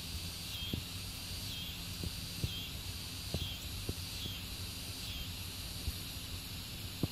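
Insects calling in a steady chorus: a high buzz that pulses about once a second. Under it runs a low steady hum, and a few light knocks come through.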